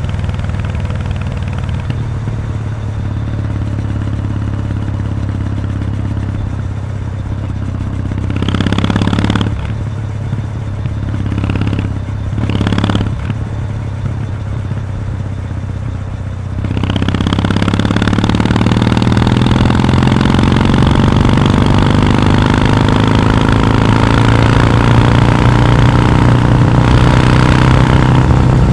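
2021 Kawasaki W800's air-cooled parallel-twin engine through its stock muffler with the baffle removed: a steady low note with a few short throttle blips, then about two-thirds of the way in it gets suddenly louder and the revs climb steadily under acceleration.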